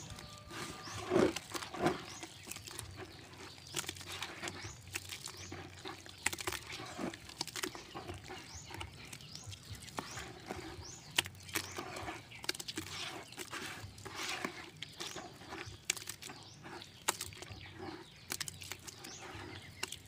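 Wet rice bran mash being squeezed and mixed by hand in a basin: irregular squelching and squishing, with a couple of louder squelches about a second in.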